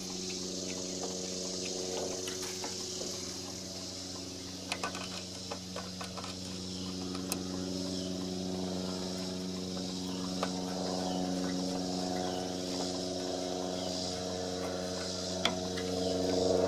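Steady hum of an idling engine, with scattered light clicks and taps of parts being handled.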